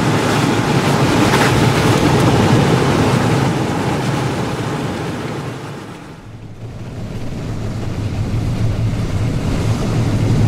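Road and wind noise inside a moving vehicle: a steady rushing with a low hum underneath. It fades out briefly about six seconds in, then comes back.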